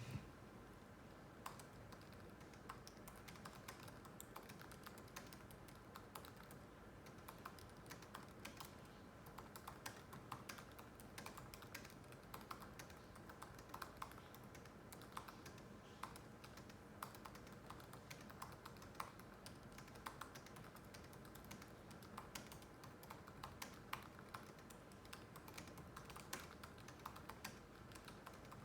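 Typing on a MacBook laptop keyboard: a steady, irregular run of quiet key clicks, several a second.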